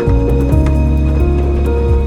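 Background music: held chords over a deep bass line, with light ticking beats.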